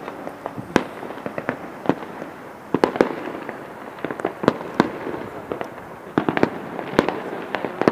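New Year fireworks and firecrackers going off at a distance, a run of sharp, irregular bangs and pops. They come thickest about three seconds in and again near the end.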